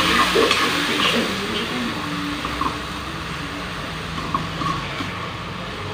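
Steady rumble and hiss of a stove under an aluminium pan of fish broth coming to the boil. A metal spoon clinks lightly against the pan a few times as broth is ladled over the tilapia.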